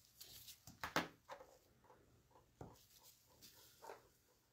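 A scatter of faint, light clicks and taps from small tools and product containers being handled on a nail work table, the loudest about a second in.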